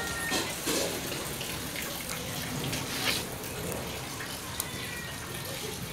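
Steady rush of water, with a few faint clicks.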